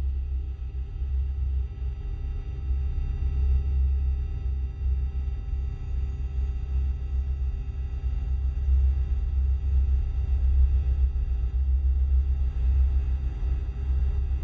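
Sci-fi UFO sound effect: a deep, steady hovering hum that wavers in loudness, with faint steady high tones ringing above it.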